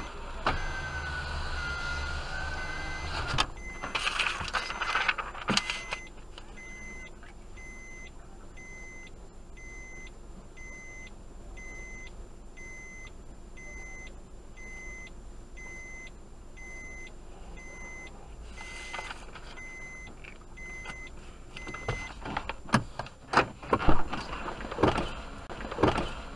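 An electronic beeper sounding short, evenly spaced beeps, about one and a half a second, that stop about 22 seconds in. A few sharp knocks come early on, and a cluster of louder knocks and clatter near the end.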